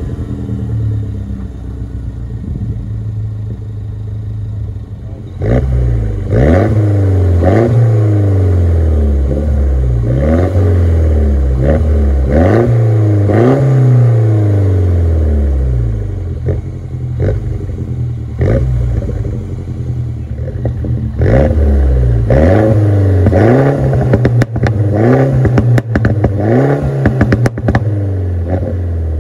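Exhaust of a 2013 MINI Cooper S (R56 LCI, N18 turbocharged four-cylinder) with the rear silencer deleted, heard at the twin tailpipes. It runs at a steady idle just after start-up, then from about five seconds in is blipped again and again while standing, the revs rising and falling about once a second. In the later revs, sharp crackles and pops come on the overrun.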